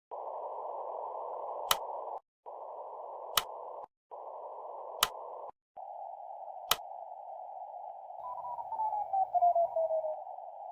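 Radio receiver static squeezed into a narrow hiss band, dropping out briefly three times, with four sharp clicks about every second and a half. From about eight seconds in, a Morse signal's tone slides down in pitch as the receiver is tuned onto it.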